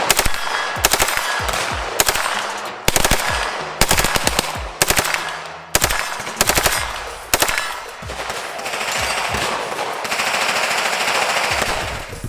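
Gunfire at an outdoor range: short rapid strings of shots, several in quick succession, repeating over about seven seconds. After that the shooting stops, leaving a steadier rushing noise.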